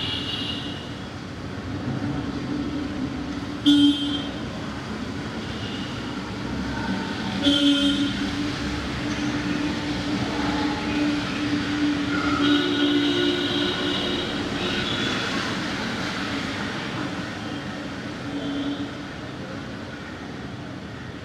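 Busy street traffic with a steady hum of engines and road noise. Vehicle horns honk over it: two short blasts about four and seven and a half seconds in, and a longer honk near the middle.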